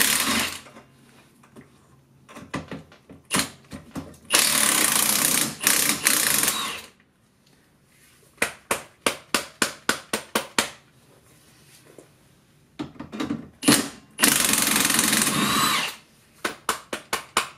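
Cordless impact wrench hammering in two runs of about two seconds each, loosening the nuts of the golf cart's rear leaf spring mounts. Between the runs come fast series of sharp clicks from hand work on the fasteners.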